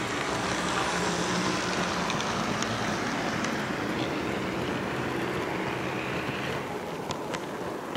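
HO-scale model train running along the track, heard from a camera car riding in the train: a steady rolling rumble of small metal wheels on rail with a low motor hum, and a few sharp clicks near the end.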